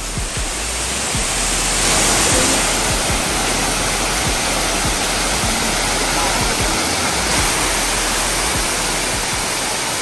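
Waterfall pouring into a shallow pool: a steady, dense rush of falling and splashing water, a little louder about two seconds in.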